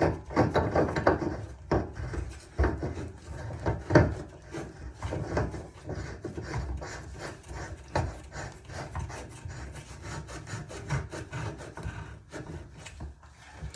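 A new bonnet nut being threaded onto a Delta ball-type shower valve body, heard as a quick, irregular run of metal scraping and clicking strokes with a few louder clicks.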